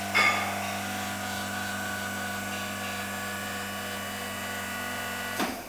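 Hydraulic butt fusion welding machine running with a steady electric motor hum, with a loud clunk just after the start. The hum cuts off shortly before the end as the machine is switched off.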